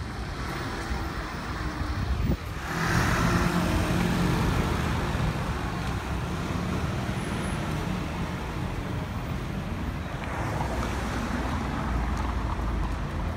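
Street traffic rumble, with a low engine hum that grows louder after an abrupt change in the sound about two seconds in.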